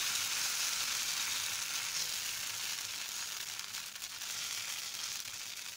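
Bottle-gourd dosa batter sizzling steadily on a hot, unoiled dosa pan as it is spread in circles with a ladle, easing off slightly toward the end.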